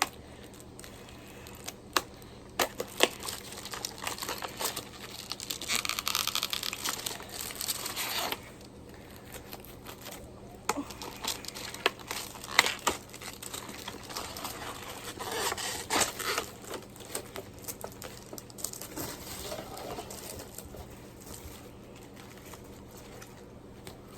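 Toy packaging being crinkled and torn open by hand, in fits and starts: scattered sharp clicks and crackles, with a longer spell of crinkling about five seconds in.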